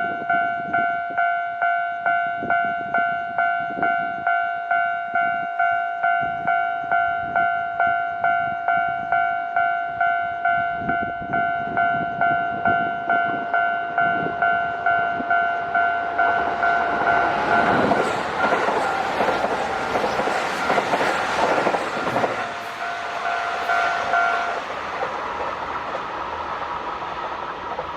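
Japanese level-crossing warning bell dinging about twice a second. A Kintetsu limited express train passes over the crossing, its rushing noise building from about 16 seconds in and loudest around 18 to 22 seconds. The bell stops about 24 seconds in, and the train noise dies away.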